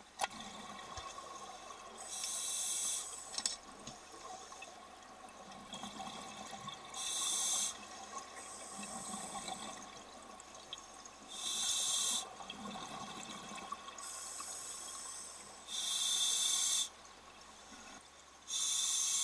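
Scuba diver's exhaled bubbles rushing from an open-circuit regulator underwater, five bursts of about a second each every few seconds, with a faint steady hum underneath.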